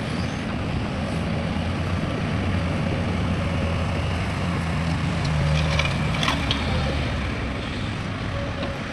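Heavy diesel construction machinery running steadily under load, its engine note swelling a little in the middle, with a few sharp metallic clanks about two-thirds of the way through.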